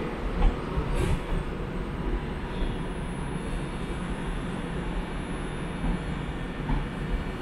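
Avanti West Coast Class 390 Pendolino electric train running into the platform with a steady low rumble. Two short knocks come in the first second, and a faint high whine holds through the middle.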